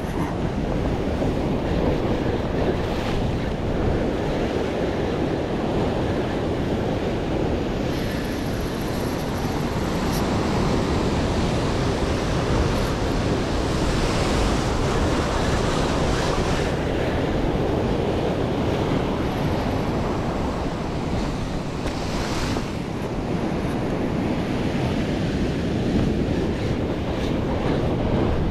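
Heavy sea surf breaking and washing over rocks, a continuous rush that swells louder now and then as waves hit, with wind rumbling on the microphone.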